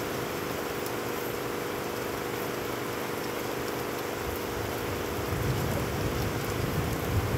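Heavy rain pouring steadily onto puddled ground, with a low rumble of thunder coming in about five seconds in.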